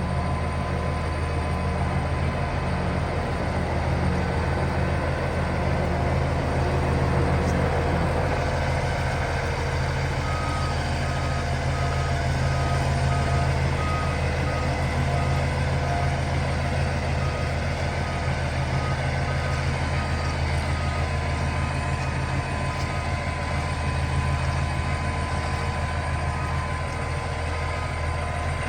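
Heavy diesel engine of a 2008 Kenworth tandem-axle logging truck idling steadily. From about a third of the way in, a beep repeats about once a second over the idle.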